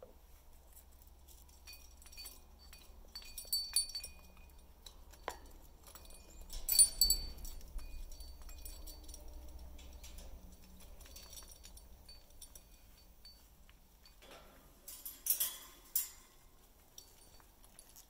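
Amazon parrot chewing and snapping the wooden blocks of a hanging toy, with the toy's metal chain clinking and the pieces knocking together. The cracking and clinking comes in bursts about three seconds in, loudest around seven seconds, and again around fifteen seconds.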